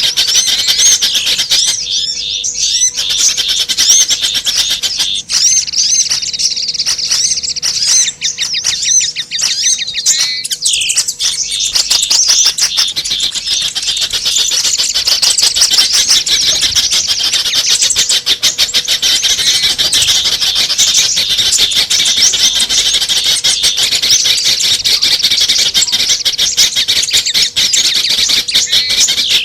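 Dense, unbroken chorus of many small birds chirping and twittering at once, high-pitched and overlapping: a mixed lure recording of several small songbird species, played to attract small birds.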